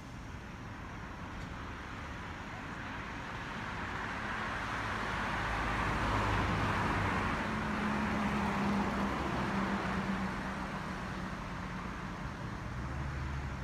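A road vehicle passing by: its tyre and engine noise builds to a peak around the middle and then eases off, with a low engine hum underneath.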